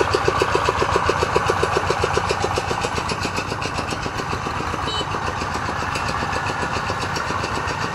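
Single-cylinder diesel engine of a two-wheel walking tractor chugging under load as it drags a heavily loaded trailer up a muddy slope. It gives an even beat of about six firing pulses a second that blurs into a steadier run about three seconds in.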